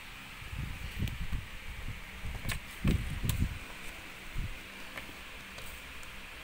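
A kitten playing with a belt hanging on a wooden cabinet door: a cluster of soft low thumps and a few sharp clicks, loudest about three seconds in, then quieter again.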